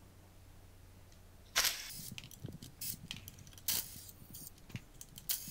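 Short bursts of a DeWalt cordless impact screwdriver backing out the controller's wire terminal screws, about a second and a half in and again near four seconds, with small metal clicks and clinks in between as screws and ring terminals come loose.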